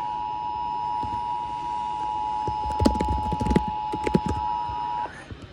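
Emergency Alert System attention signal from a radio broadcast: the steady two-tone alarm, 853 and 960 Hz sounded together, that warns an emergency message follows. It cuts off sharply about five seconds in. Midway through, a cluster of loud knocks and clatter sounds over the tone.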